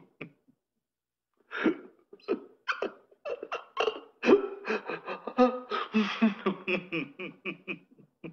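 Laughing sound effect: a voice laughing in quick, choppy bursts, starting about a second and a half in after a short silence.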